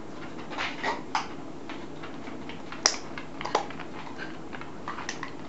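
Shetland sheepdogs playing with a ping-pong ball on tatami mats: a run of irregular light clicks and taps, with one sharp click about three seconds in.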